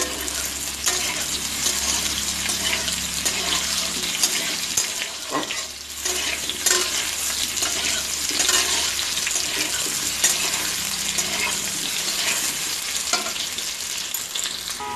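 Potato chunks sizzling as they shallow-fry and brown in mustard oil in a kadai, with a metal spatula scraping and knocking against the pan now and then as they are turned.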